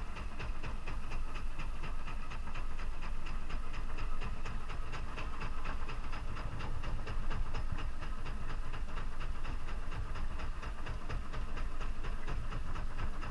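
Boat motor running at slow trolling speed, with water and wind rushing past; a fast, even ticking runs through it.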